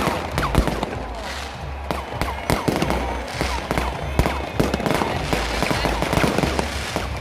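Fireworks going off in quick succession: a dense run of bangs and crackles, with a few whistles falling in pitch.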